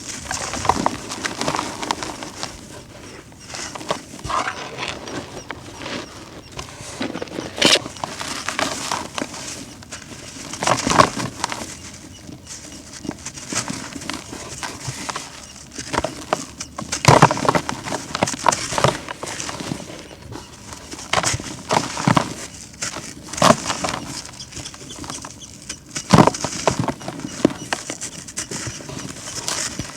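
Dry, brittle chunks of earth or concrete-like material being crushed and crumbled, with irregular crunches and sharp cracks over a steady gritty crumbling.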